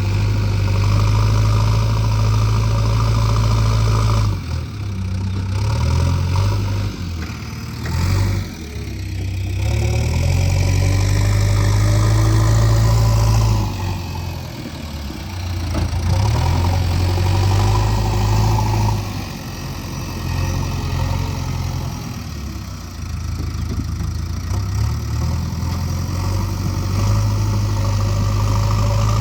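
Diesel engine of a JCB 3DX backhoe loader running under load while it works. The engine note drops and picks up again several times as the load changes.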